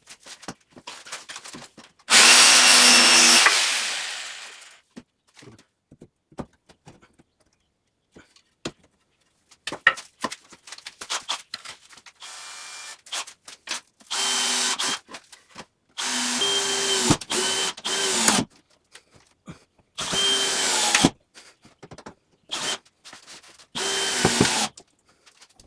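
Power drill running in five short bursts with a steady whine, the first burst the loudest and longest, with small clicks and knocks between them.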